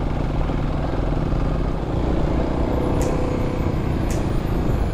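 Dirt bike engine running under way on a rocky dirt trail, heard from on the bike, with wind and trail noise; the engine note shifts about two seconds in, and a few short sharp ticks come near the end.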